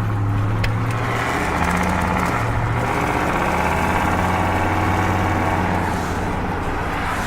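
Car engine running while driving, a steady low hum with road noise.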